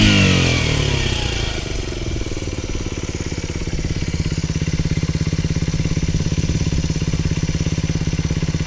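Honda R&P's 50cc single-cylinder four-stroke engine, heard through a one-off exhaust made from the modified stock header pipe and a stainless silencer. Its revs fall back over the first couple of seconds, then it settles into a steady, even idle.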